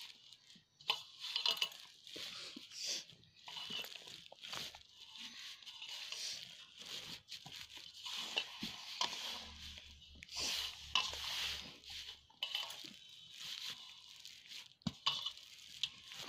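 Hands kneading crumbly maida dough on a metal plate: irregular squishing, crumbling and scraping, with a few light knocks against the metal.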